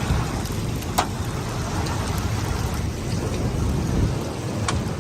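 Heavy rain pouring down over a low rumble, with two sharp ticks, one about a second in and one near the end.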